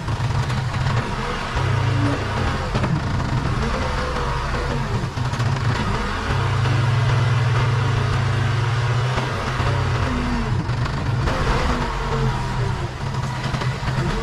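Case 580 Super K backhoe loader's four-cylinder diesel engine running, swelling louder under load twice: briefly about two seconds in, then for about three seconds from six seconds in.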